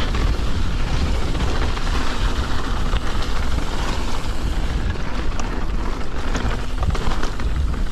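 Mountain bike descending a trail at speed: a steady rush of wind and rolling tyre noise with a heavy low rumble, and a few sharp clicks and rattles from the bike and stones.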